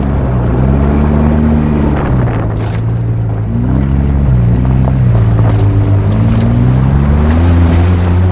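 2008 Polaris RZR 800 side-by-side's twin-cylinder engine running under throttle while driving on snow and ice. Its pitch rises and falls several times, then holds steady near the end.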